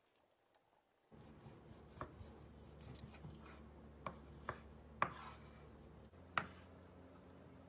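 Knife cutting raw beef on a wooden cutting board, the blade knocking against the board about six times at uneven intervals.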